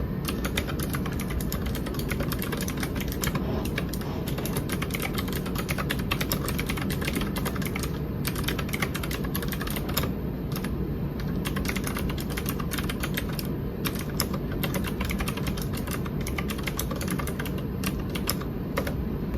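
Keychron K6 mechanical keyboard with Gateron Blue clicky switches being typed on quickly: a rapid stream of sharp key clicks broken by a few brief pauses, over a steady low background hum.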